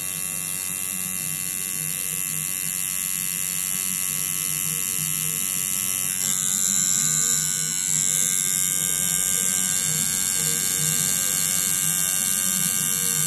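Electric tattoo machine running steadily with its needle working in the skin as it lines an outline. The high part of its buzz shifts about six seconds in.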